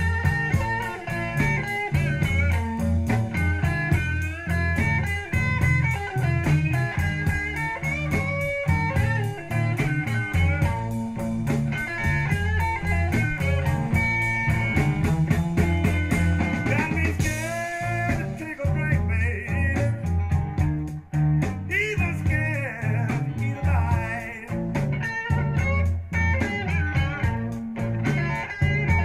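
Guitar-based rock music with a steady bass beat, played from a vinyl LP through a Sansui AU-555 amplifier and Design Acoustics PS-8c speakers and picked up in the room.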